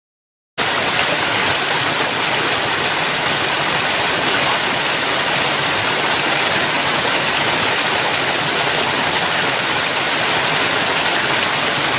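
Steady hiss of heavy rainfall, starting suddenly about half a second in.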